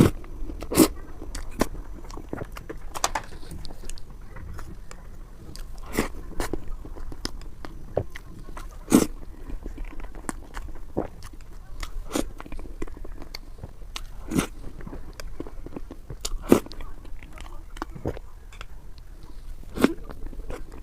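Close-miked eating: biting and chewing with sharp, irregular mouth clicks and occasional crunches.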